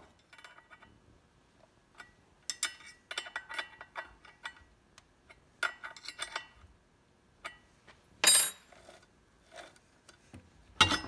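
Metal clinks, rattles and scrapes as the steel clamp of a Beam Machine chainsaw-mill jig is fitted onto a Husqvarna chainsaw bar, with one loud sharp clack about eight seconds in and another near the end.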